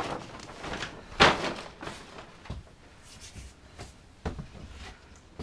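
Handling noises: one sharp thump about a second in, then a few lighter knocks and bumps.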